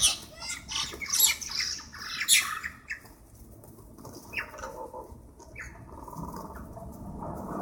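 Birds fighting, with a scuffle of harsh, rapid squawks through the first three seconds or so. After that come only a couple of short single calls.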